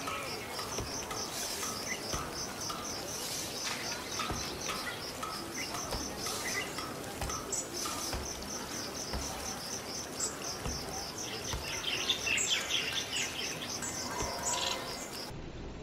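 Insects chirping in a steady, rapid, even pulse, with birds calling in short chirps about eleven to thirteen seconds in. The chirping stops shortly before the end.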